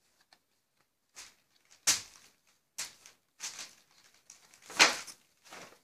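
Pages of a paper CD booklet being turned and handled: a run of about six short rustles and flaps, the loudest about two seconds in and again near the end.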